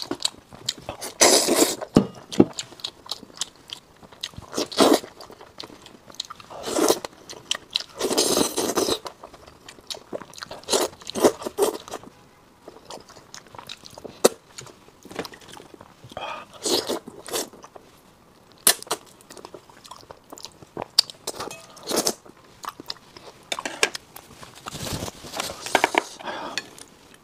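A person chewing and biting into braised fish, with wet, crunchy mouth sounds in irregular bursts, picked up close by a clip-on microphone.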